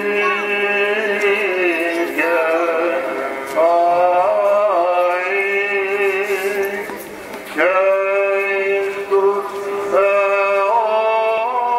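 A male voice chanting a slow, ornamented melody over a steady low held note (the ison drone), typical of Greek Orthodox Byzantine chant; the melody breaks off and starts a new phrase several times.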